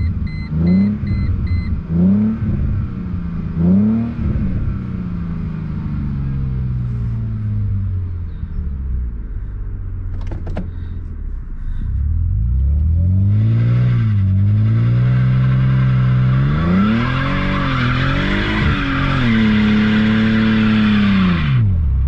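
Mercedes C32 AMG's supercharged V6 exhaust with a new Magnaflow straight-through muffler, secondary cats deleted and a Magnaflow resonator, heard from inside the cabin. It opens with quick rev rises and falls over a short run of rapid beeps, settles into a steady, slowly falling cruise, then from about halfway pulls hard with the revs climbing in steps. A high hiss rides over the pull and cuts off suddenly as the revs drop near the end.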